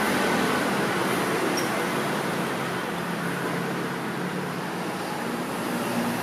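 Steady hum of road traffic noise.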